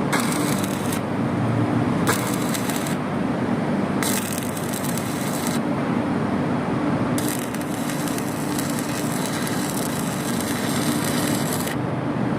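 Electric arc welding: the arc crackles and sizzles in four separate runs, the last and longest about four and a half seconds, over a steady low hum.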